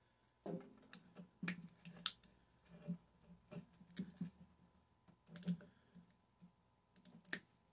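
Irregular light clicks and knocks of tools and metal parts being handled while a microwave oven is taken apart, the sharpest about two seconds in.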